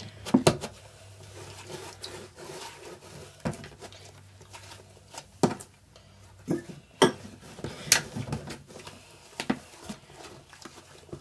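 Irregular sharp clicks and knocks of bowls, containers and utensils being handled while slime is mixed.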